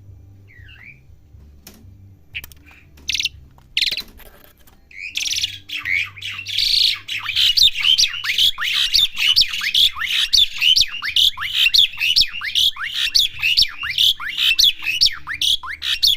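Asian pied starling calling: after a few faint calls and clicks, a long run of rapid, harsh, downward-sliding notes starts about five seconds in and repeats several times a second.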